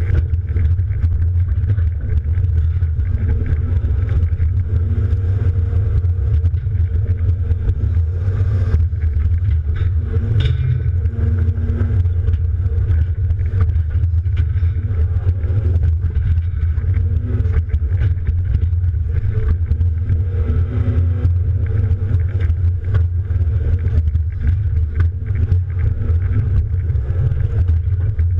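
Deere 270D LC excavator's diesel engine running steadily, heard from inside the cab, with scattered faint clicks and knocks.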